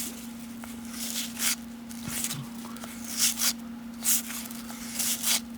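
1991 Topps baseball cards sliding against one another as they are flipped one by one off a stack: a series of short papery swishes, about seven in all, over a steady low hum.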